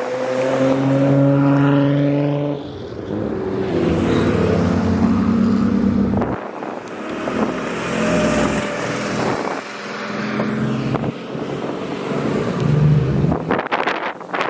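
Modified car engines driving past one after another, each a steady low engine note that rises and fades as the car goes by.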